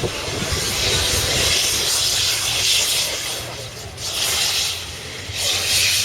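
A loud hissing noise that swells and fades, strongest from about a second in to past the middle and again near the end, over a low rumble.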